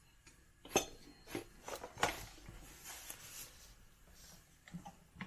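A handful of light, separate clicks and clinks as the metal heating plate and other parts inside an Instant Pot's base are handled.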